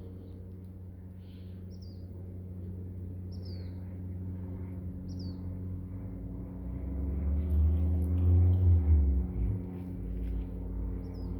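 A bird giving short, high, descending chirps about four times, over a steady electrical hum. A louder low rumble rises and falls in the second half.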